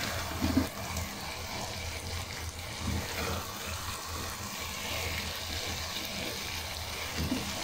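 Shalgam palak curry sizzling quietly in its released ghee in a pot, with a few soft scrapes of a wooden spatula as it is scooped out into a bowl.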